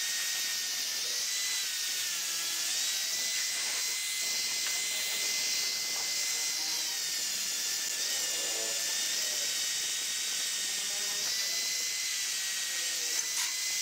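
Electric angle grinder running steadily as it grinds rust off a steel leaf spring: a high whine over a hiss that dips slightly in pitch now and then.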